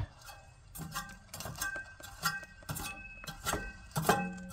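Engine cooling fan and viscous fan clutch turned by hand against the serpentine belt, giving about eight irregular metallic clicks, each with a brief ringing tone.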